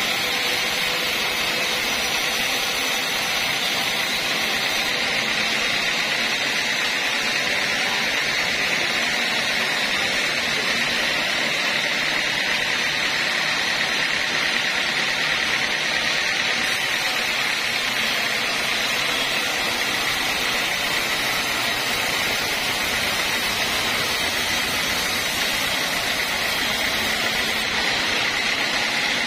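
Home-built band sawmill running, its blade ripping lengthwise through a mahogany log: a steady, unbroken noise of blade and machine at an even level.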